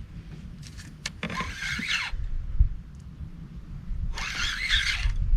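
Fishing reel being cranked in two short bursts of whirring, each about a second long, about a second in and again near the end, while a hooked catfish is reeled toward the boat. A steady low rumble runs underneath.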